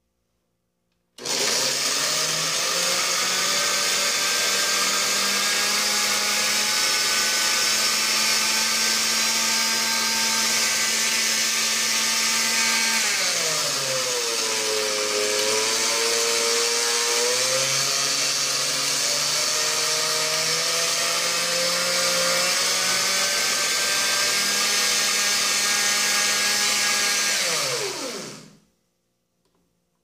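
Oster Core blender with glass jar blending tomato pieces and water. The motor starts about a second in and runs steadily, slows and drops in pitch about halfway through as a speed button is pressed, then speeds up again. Near the end it winds down and stops.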